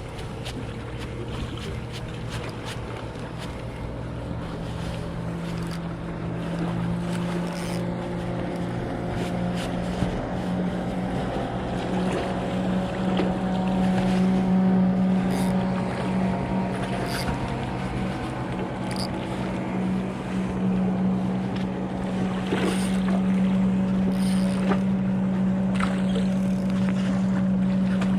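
A motorboat engine running with a steady hum that grows gradually louder, with scattered clicks over it.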